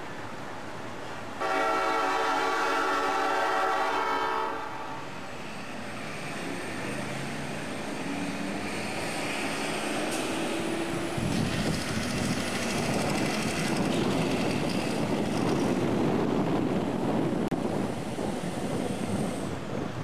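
Roof-mounted air train horns on a heavy fire rescue truck sound one long, loud chord for about three seconds. This is followed by the truck's diesel engine rising in pitch as it pulls away and passes.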